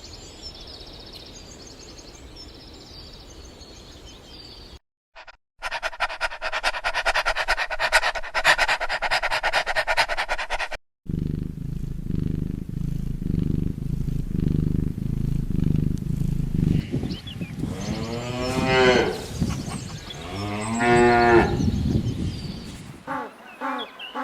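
Cows mooing: two long moos that rise and fall in pitch, in the second half, over a low steady rumble. Before them come separate short clips of other sounds: a faint high twittering, then a loud rapid pulsing sound.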